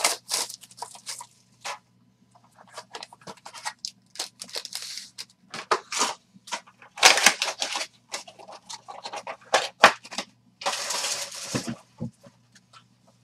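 Foil-wrapped trading-card packs and their wrappers crinkling and rustling in irregular bursts as they are opened and handled. There are two longer, louder stretches of crinkling, about seven and about eleven seconds in.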